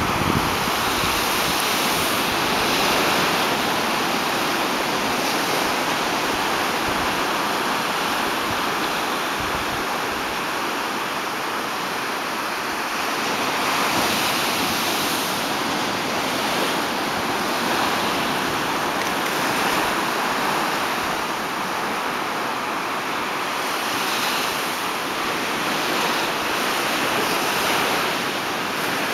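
Small ocean waves breaking and washing up a beach: a steady rush of surf that gently swells and eases every few seconds.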